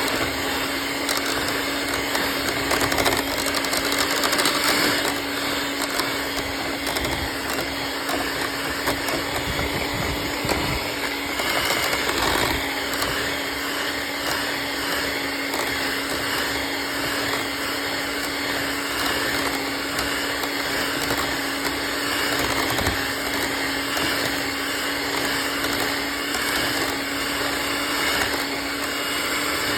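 Electric hand mixer running at a steady speed with a constant hum, its beaters whipping boiled potatoes into mashed potatoes.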